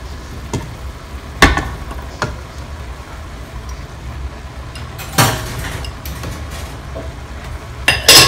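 A bowl and a spatula knocking against a square nonstick pan: a handful of sharp single knocks, with the loudest double clatter just before the end. A steady low hum lies underneath.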